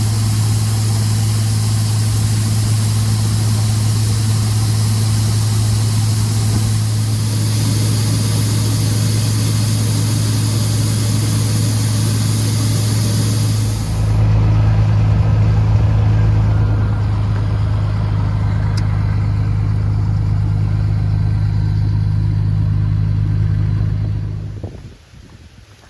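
Combine harvester running while harvesting corn: a steady low engine hum under a high hiss. About halfway through, the hiss stops and the hum grows deeper and louder; near the end the sound falls away sharply.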